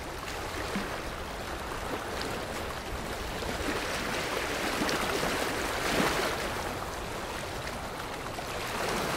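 Water sound effect for swimming underwater: a steady rushing, bubbling wash of water that swells a little around the middle.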